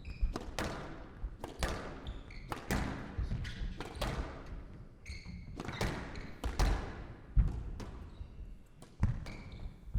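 A squash rally: the ball cracking off rackets and the walls at an irregular pace, each hit ringing on in the court, with a few brief squeaks of shoes on the court floor.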